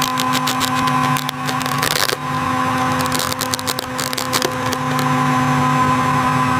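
A steady mechanical hum of several fixed tones, with bursts of clicking and tapping about a second in and again in the middle.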